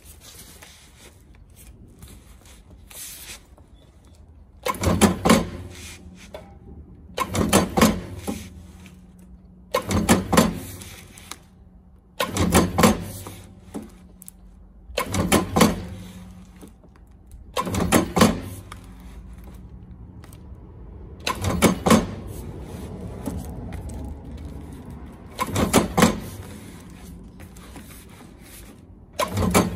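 Stago Salut stapling machine driving staples through the edge of cardboard packaging, about nine strokes roughly every two and a half seconds, each a short mechanical clatter with a hum. Between strokes there is quieter sliding of the cardboard along the machine's table.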